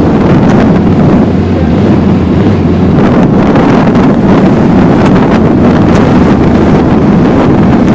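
Heavy wind buffeting the microphone of a camera on a moving motorcycle, over the motorcycle's engine running steadily.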